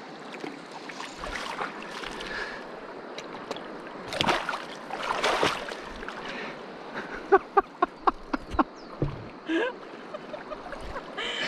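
A hooked golden dorado thrashing in shallow muddy water at the bank as it is landed: splashing and sloshing, with a run of short sharp wet slaps about seven to nine seconds in.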